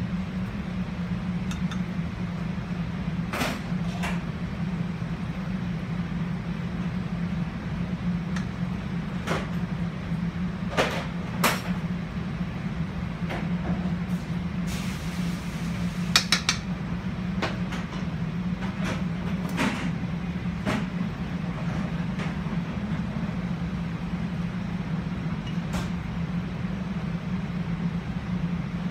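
Steady low hum of commercial kitchen equipment, with scattered clinks and a brief scrape of a metal spoon and tongs against a pan and plates as black risotto and seared scallops are plated.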